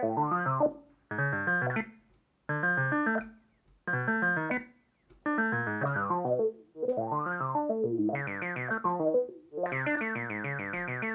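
Behringer Crave analog synthesizer playing a fast step-sequenced note pattern in short phrases of about a second, with brief gaps between them. The tone brightens and darkens as the filter is modulated. Near the end the sequence runs on without gaps.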